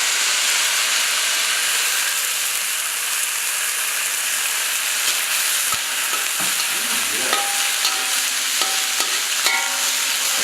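Chopped leaves and egg frying in hot oil in a pan, a loud steady sizzle, with a few light clicks of the spatula as it is stirred.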